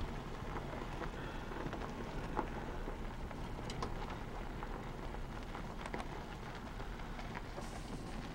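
Steady rushing background noise, with a few faint scattered clicks and ticks.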